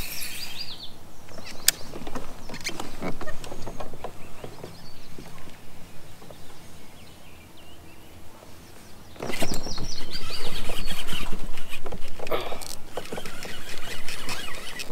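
Small birds singing in short, repeated falling phrases, over scattered knocks of fishing gear against a plastic kayak. About nine seconds in, a louder rush of water noise starts and lasts a few seconds.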